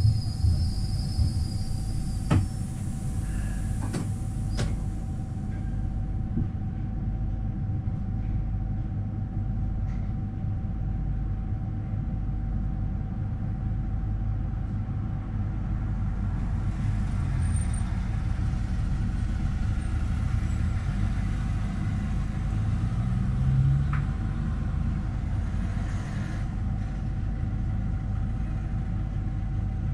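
Standing AVG Stadtbahn tram heard from the driver's cab, its onboard equipment running with a steady low rumble and a constant mid-pitched hum. A few sharp clicks come in the first five seconds.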